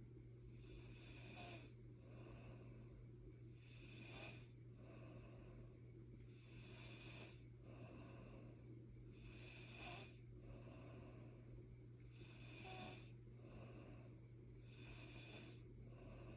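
Faint, rhythmic snoring, a breath about every three seconds, each with a wheezy, hissing edge. A steady low hum runs underneath.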